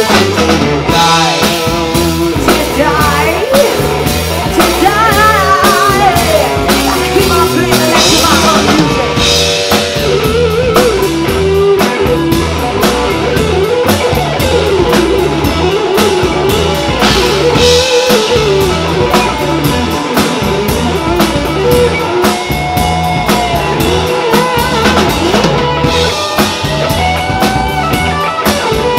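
Live rock band playing: electric bass, electric guitar and a drum kit keeping a steady beat.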